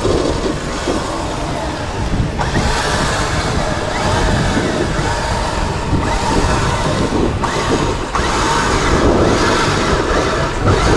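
Vehicle engines running steadily, with a rise in level about two seconds in.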